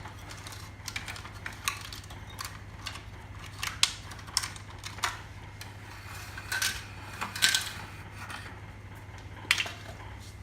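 Scattered small clicks and clatters as wire connectors are unplugged from an air conditioner indoor unit's control board and its plastic parts are handled, over a steady low hum.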